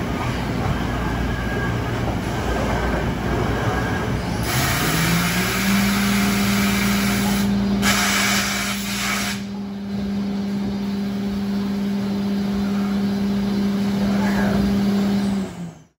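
Mazak VCS-530C CNC vertical mill running. Its spindle speeds up, rising in pitch to a steady hum with a bright hiss of spray from the tool for several seconds. The hum holds until the sound cuts off just before the end.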